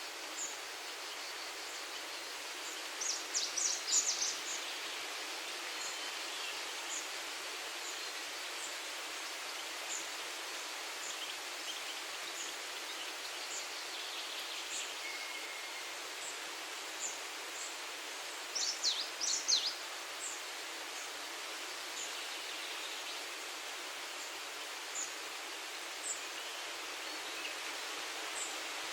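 Breeze rustling through tree leaves as a steady hiss, with birds singing: scattered short high chirps throughout, and two brief busier bursts of song, about three seconds in and again about two-thirds of the way through.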